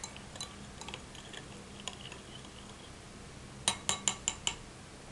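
Metal teaspoon stirring water in a drinking glass: light, scattered clinks against the glass, then a quick run of about six sharper clinks near the end.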